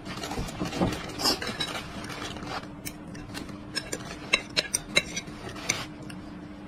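Chopsticks clicking and scraping against a plate of rice. There is a mix of handling noise in the first couple of seconds, then a quick run of sharp clicks about four to five and a half seconds in.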